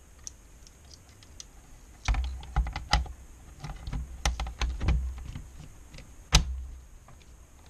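Irregular clicks, taps and knocks of a sheet-metal LCD monitor chassis being set down onto the touch screen's metal frame and shifted into place. They start about two seconds in, with one sharper knock near the end.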